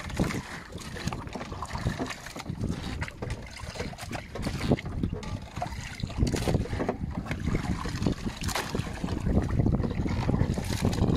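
Wind buffeting the microphone over water lapping and sloshing, an uneven low rumble with scattered small knocks.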